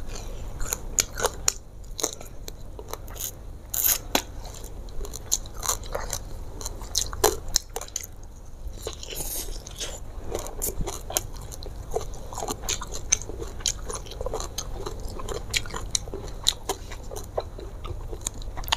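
Close-miked chewing: a person eating fried tilapia and rice with lots of short wet lip smacks and mouth clicks, with the odd crunch.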